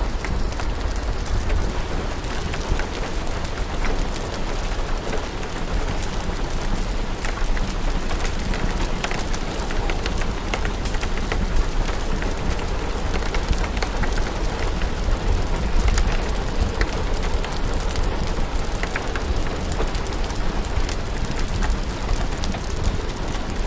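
Steady rain falling, mixed with scattered crackles and pops from a wood fire, over a steady low rumble.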